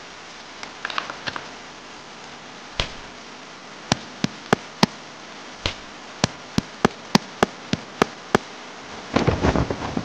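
Steady hiss of rain with a series of sharp single clicks, about fifteen, scattered through the middle, and a short burst of crackling rustle near the end.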